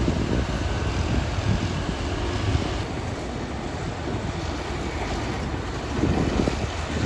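Heavy diesel earthmoving machinery running steadily at a distance, a low rumble that swells briefly about six seconds in.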